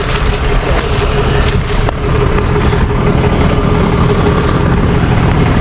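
Truck engine running steadily; its low hum firms up and gets a little louder about two seconds in.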